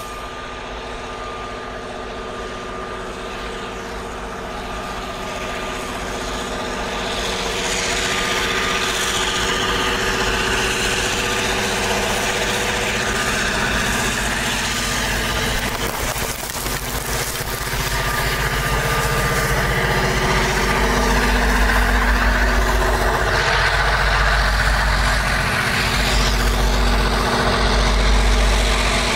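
Union Pacific rotary snowplow train working through deep snow: diesel locomotive engines running hard under a steady rush of snow being cut and thrown by the rotary. It grows steadily louder as the train closes in.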